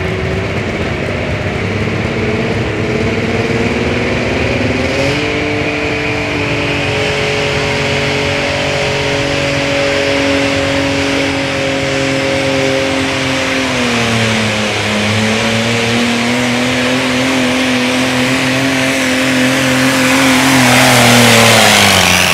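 Diesel engine of a modified John Deere garden pulling tractor under full load pulling a weight-transfer sled. Its pitch climbs about five seconds in, sags and recovers around the middle, and falls away near the end, when a loud rush of noise swells up.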